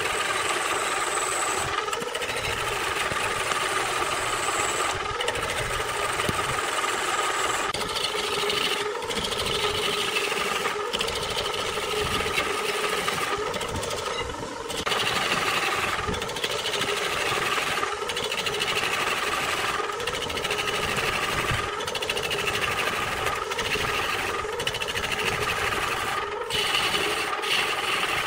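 Wood lathe running with a turning tool cutting the spinning wood: a steady mechanical whirr and scraping, broken by short gaps every second or two.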